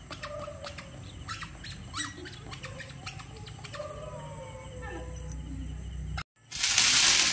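Frogs croaking at night: faint short clicks and brief calls that glide in pitch. About six seconds in the sound cuts off, and a loud, steady hiss of a burning sparkler starts.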